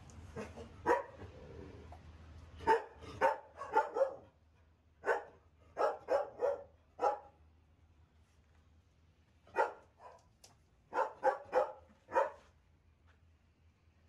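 Dogs barking in short runs of two to four barks with pauses between.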